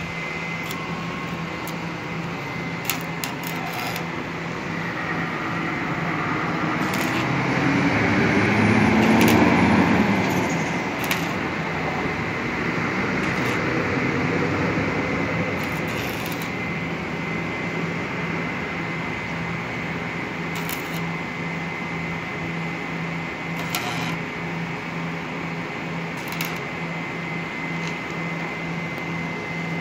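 Stick (arc) welding on a truck's steel rear underrun bar with a small inverter welder: a steady crackling hiss of the arc with scattered sharp clicks, over a low pulsing hum. A louder low rumble swells up and dies away around nine seconds in.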